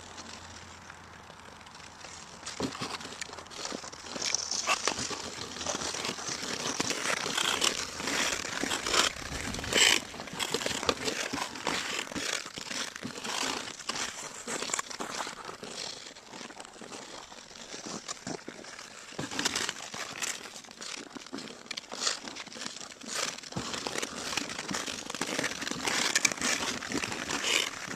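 Ice skate blades scraping and carving over rough outdoor pond ice: a continuous irregular scratchy crackle with louder strokes here and there.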